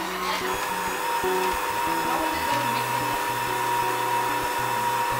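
Electric stand mixer's motor running steadily with a high whine while mixing bun dough in its steel bowl. Instrumental background music plays underneath.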